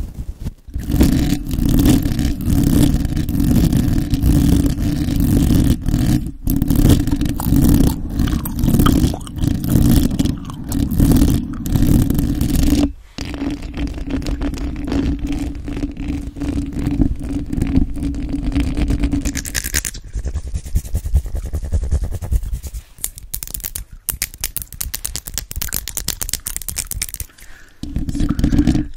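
A brush swept back and forth over a microphone's grille, then fingernails scratching on the grille, heard as dense scraping right at the microphone. The sound changes about 13 seconds in, and after about 20 seconds it becomes sparser, with separate scratches and taps.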